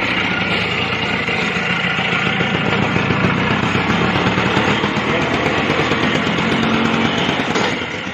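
An old scooter's engine running hard under a heavy load of bricks as the scooter pulls away. It drops off sharply near the end.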